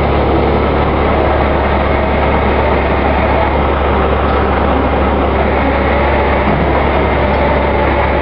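Rollback flatbed truck's engine running steadily, with a constant low hum underneath.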